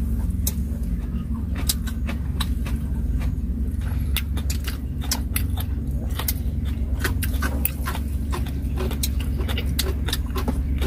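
Eating sounds close to the microphone: irregular sharp clicks and taps of chopsticks, food containers and chewing, over a steady low rumble.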